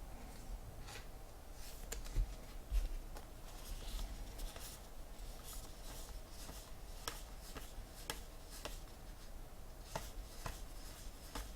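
Trading cards being handled and flipped through one by one: faint, irregular clicks and rubbing of card stock, with a couple of soft knocks about two seconds in.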